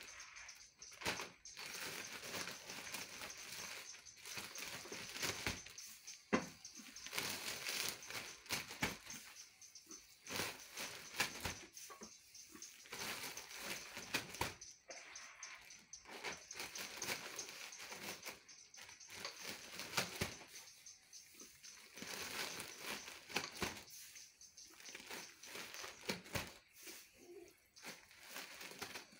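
Dry straw rustling and a clear plastic bag crinkling as handfuls of straw are stuffed and pressed down into the bag, in irregular bursts.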